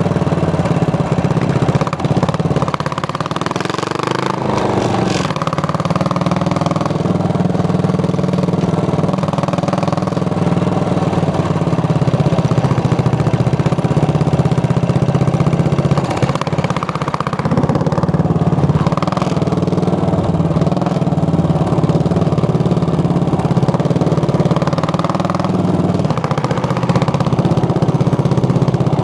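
Single-cylinder Yamaha motorcycle engine running steadily while riding. The engine note rises and falls a few seconds in, as the revs change.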